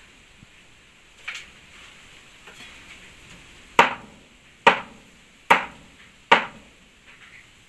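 Knife chopping meat on a wooden chopping board: one lighter chop about a second in, then four hard, evenly spaced chops a little under a second apart after the middle.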